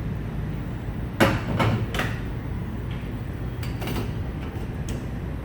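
Tire and wheel work in a truck service bay: a few sharp hammer-like knocks, three close together a little over a second in and fainter ones later, over a steady low hum.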